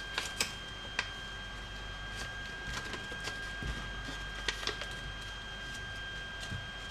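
A sheet of A4 printer paper being folded and creased by hand: scattered soft crinkles and taps, over a faint steady high whine.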